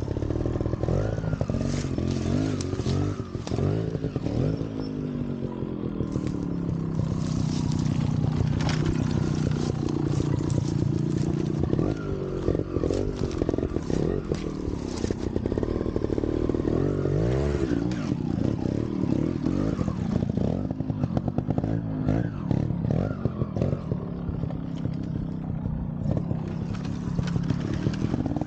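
Trials motorcycle engine revved up and down again and again at low speed, the throttle blipped over and over, with scattered clattering knocks.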